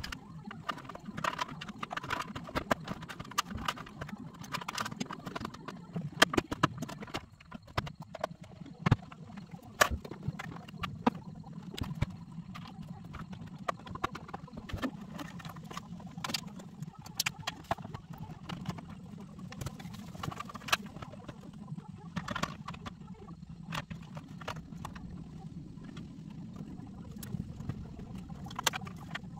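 Irregular clicks, taps and knocks of hands and tools working on plastic dashboard panels and wiring, over a steady low hum.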